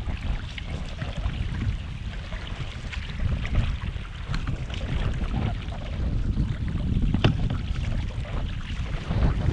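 Wind rumbling on the microphone over water splashing and lapping around an open canoe being paddled on choppy water. A single sharp click about seven seconds in.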